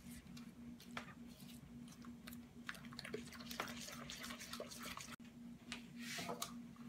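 Silicone spatula stirring a runny egg-and-butter batter in a glass mixing bowl: faint, soft wet sloshing and scraping with small irregular taps against the glass.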